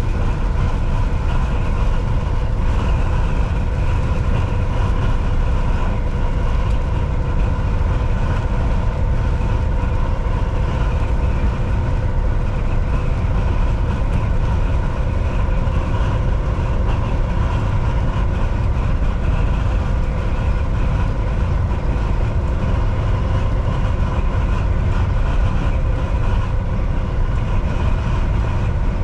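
Volvo VNL 760 semi truck cruising at highway speed: a steady engine drone and heavy road rumble, with a faint steady whine over it.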